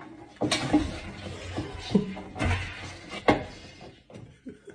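A run of irregular knocks and clatter on a kitchen counter, with sharp knocks about half a second in, at two seconds and just past three seconds, as a cat and a person's hand move about among things on the counter.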